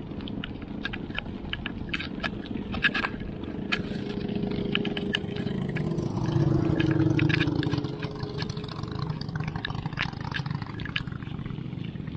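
Bicycle rolling over concrete with a steady rumble and scattered rattling clicks. A motorcycle engine passes close by about six to eight seconds in, the loudest part.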